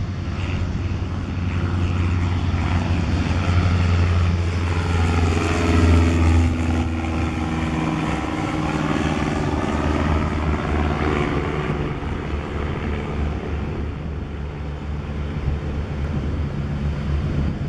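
Cessna 152's four-cylinder Lycoming engine at climb power as the plane climbs out after takeoff and flies past, loudest about six seconds in, then fading a little as it climbs away.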